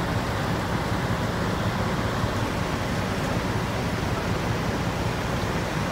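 Diesel engine of a fire department tanker truck running steadily close by, a low, even engine sound with no change in speed.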